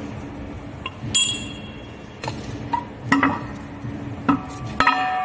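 A few separate metal clinks and knocks, some ringing briefly, as the top nut comes off the barbed wire machine's metal take-up spool and its flange is handled by hand. Plucked-string music starts near the end.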